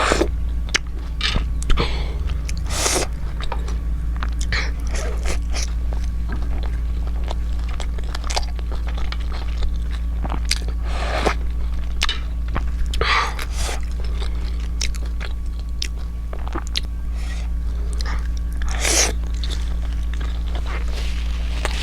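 Close-miked chewing and biting of steamed momo dumplings, with irregular wet mouth clicks and smacks, over a steady low hum.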